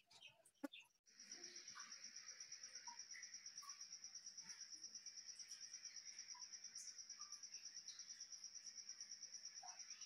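A faint cricket chirping in a steady, rapid trill of evenly spaced high pulses, starting suddenly about a second in. It is preceded by a few soft taps and clicks.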